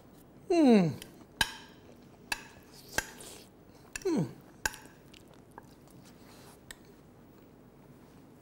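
A man tasting food with his mouth full: two falling murmurs of appreciation, about half a second in and about four seconds in, with a few sharp clinks of a metal spoon on a ceramic plate between them.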